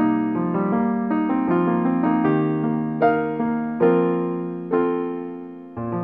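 Background piano music: a slow melody of single notes, each struck and left to ring and fade.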